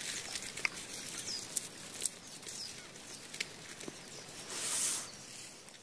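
Outdoor forest ambience: a steady hiss with scattered small clicks and faint high chirps. A brief louder rushing rustle comes a little before the end.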